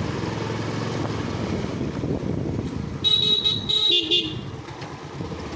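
Motorcycle engine running steadily while riding, with a horn honking twice about three and four seconds in.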